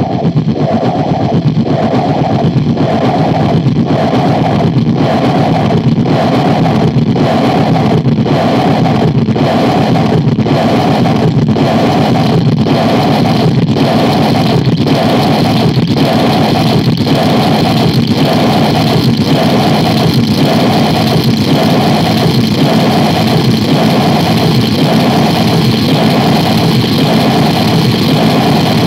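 Harsh noise drone from synthesizer and effects: a loud, dense, distorted rumble like a running engine, with a mid-pitched tone that pulses steadily a little over once a second.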